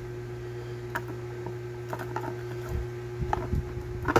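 A steady low hum with a faint steady tone above it, and scattered light knocks and clicks of things being handled, the sharpest one right at the end.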